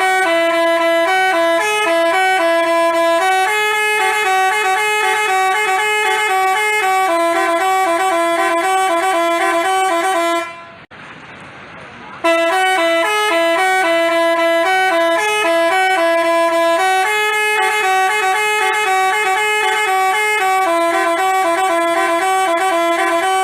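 Basuri telolet bus horn playing a melody of stepped, held notes. It stops briefly about eleven seconds in, then plays the tune again.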